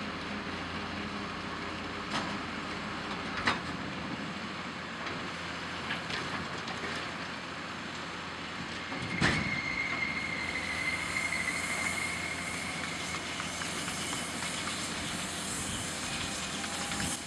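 John Deere tractor engine and a Lely Welger RPC 445 Tornado baler-wrapper running steadily with mechanical clatter and a few sharp knocks. About nine seconds in a single heavy clunk as the baler's tailgate shuts after the bale is ejected to the wrapping table, followed by a steady whine for a few seconds as the wrapper works.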